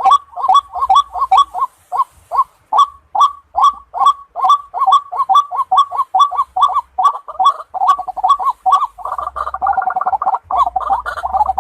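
White-breasted waterhen calling: a long run of short, harsh notes repeated about three times a second, becoming denser and overlapping from about nine seconds in.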